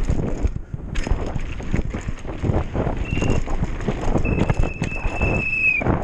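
Hardtail mountain bike descending a rough dirt trail at speed: a dense, irregular clatter of the tyres over stones and ruts and the bike rattling. About four seconds in, a high steady squeal sounds for nearly two seconds.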